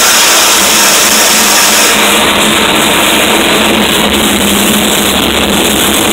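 Harsh noise music played live from electronic gear on a tabletop: a loud, dense, unbroken wall of noise that stays steady.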